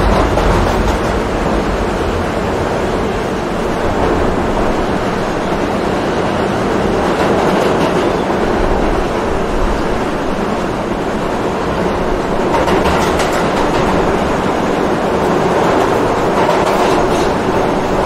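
Subway train running, a steady loud rumble and hum of wheels on track. Twice in the second half come spells of quick rail clatter.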